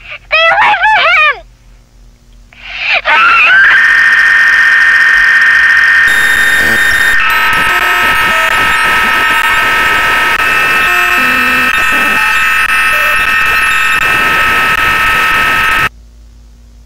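A short, loud warbling, distorted sound. Then, about three seconds in, a loud, harsh electronic alarm-like tone with hiss starts; it shifts in pitch around six and seven seconds in and cuts off suddenly near the end.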